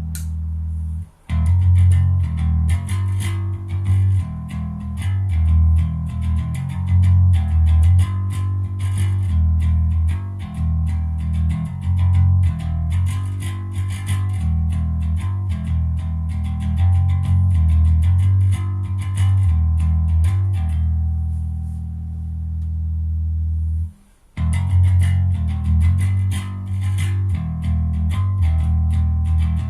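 Electric bass guitar played through an Ampeg SVT-style clone bass amplifier, testing the amp's tone: a run of plucked low notes in a steady rhythm. Near the end one note is left to ring and fade, then after a short stop the playing starts again.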